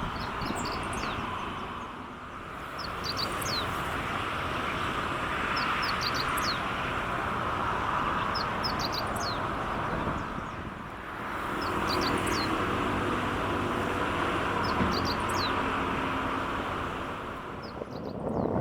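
Small birds chirping, short high falling notes in little clusters every second or two, over a steady rushing background noise.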